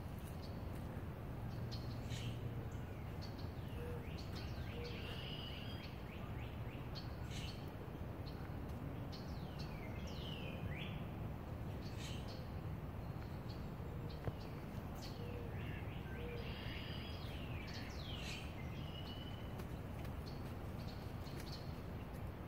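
Woodland birds calling: scattered short chirps and falling whistled notes from several birds, over a steady low rumble.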